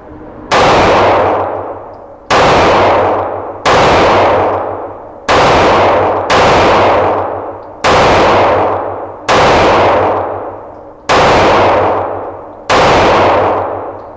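Nine shots from a Springfield Armory XD-E 9mm pistol, fired at a steady pace about one to two seconds apart. Each shot has a long echoing tail in the indoor range.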